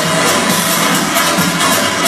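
Loud electronic dance music with a steady, quick beat.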